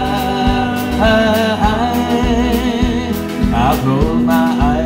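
Live country band playing a slow cowboy ballad: a man's singing voice and fiddle over guitar, with a steady beat of about two strikes a second.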